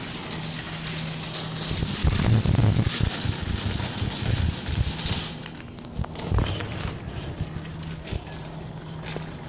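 Shopping cart being pushed over a hard store floor, its wheels and wire basket rattling, loudest between about two and five seconds in, over a steady low hum.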